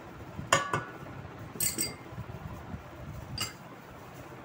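A small bowl clinks against the rim of a steel mixing bowl a few times as salt is tipped out of it, with the loudest clinks about half a second in and the last near the end.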